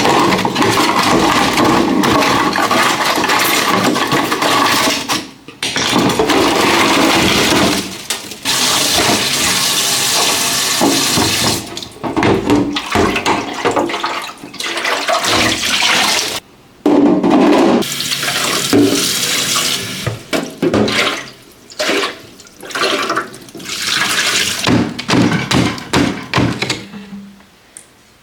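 Water running from a tap into a sink, splashing steadily in several stretches broken by short gaps, then coming on and off in short bursts near the end.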